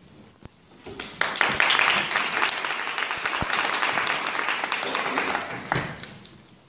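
Audience applauding, a dense patter of many hands clapping that starts about a second in and dies away near the end.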